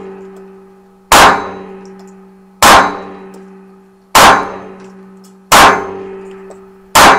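Manurhin-built Walther PP pistol in .22 LR firing five single shots, one about every second and a half, each a sharp crack with a ringing tail in an indoor shooting range.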